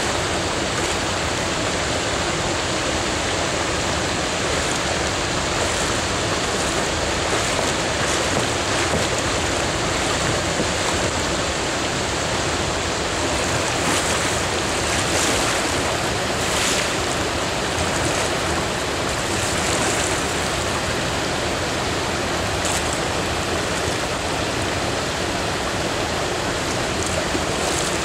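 Steady rush of a shallow river's current flowing past at water level, with a few kayak paddle splashes about halfway through.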